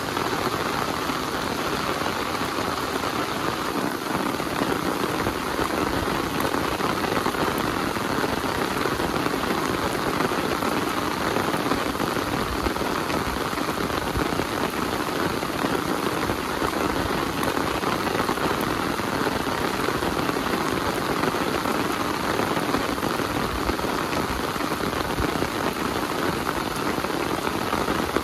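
Heavy rain falling steadily, an even, unbroken hiss of rain on surfaces.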